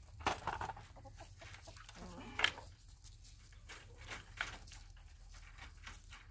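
Backyard hens clucking a few times, short separate clucks over a quiet background.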